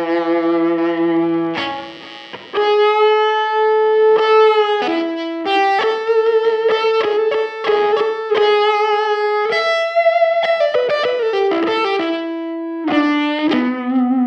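Electric guitar strung with GHS Boomers strings playing a slow lead line of sustained single notes with vibrato, through an effects unit. The notes step down in pitch about two-thirds of the way through.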